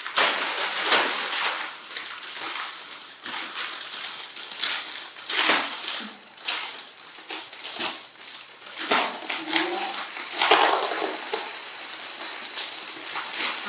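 Crinkling and rustling of a large plastic bag full of wrapped snack packets as it is handled and pulled at by hand, in a string of irregular crackles.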